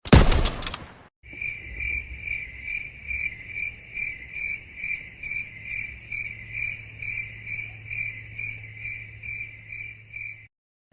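A loud hit fading out in the first second, then crickets chirping steadily, about two chirps a second: the stock crickets sound effect used in memes for an awkward silence.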